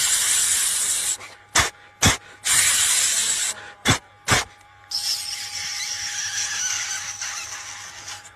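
A man imitating a train braking on arrival at a junction with his mouth: hissing blasts like air brakes, sharp clicks between them, and a last long hiss that fades away.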